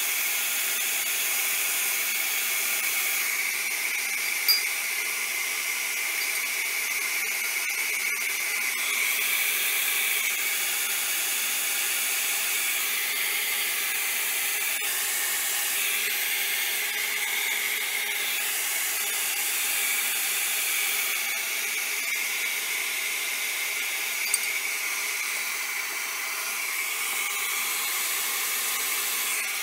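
Handheld heat gun blowing hot air steadily over wet alcohol ink, an even hiss with a high whine, and two small clicks.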